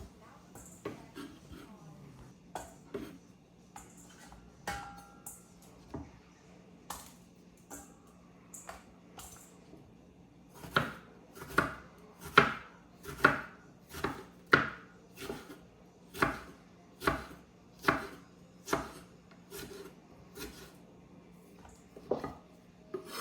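Kitchen knife slicing jalapeño peppers thin on a cutting board: single knife strokes landing on the board, light and uneven at first, then firmer and steady at a little over one stroke a second in the second half.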